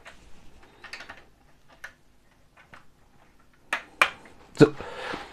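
Plastic building-brick bridge sections and their fastening brackets being snapped together by hand: a few sharp plastic clicks about a second in, then a cluster of louder clicks and a short rustle near the end.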